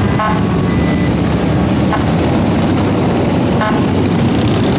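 Several cruiser motorcycles riding past, their engines running steadily and loudly, with two short horn toots, one just after the start and one about three and a half seconds in.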